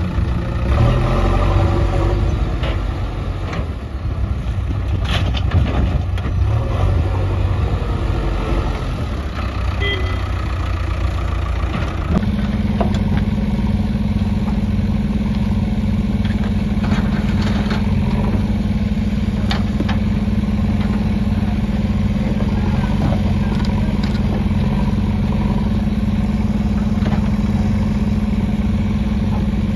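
JCB backhoe loader's diesel engine running under load while it digs and moves earth, with scattered knocks of stones and the bucket. About twelve seconds in, the engine settles into a steady, even drone.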